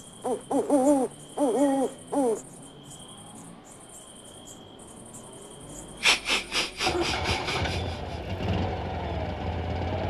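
Owl hooting about five times in quick succession, each hoot wavering in pitch, over a thin steady insect trill. About six seconds in, a quick rattle of clicks cuts in, followed by a low rumbling noise.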